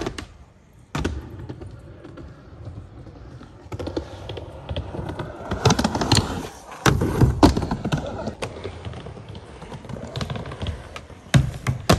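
Skateboard wheels rolling over ramp surfaces, broken by sharp clacks and thuds of the board: pops, landings and trucks striking coping. One strike comes about a second in, and a cluster of them falls around the middle.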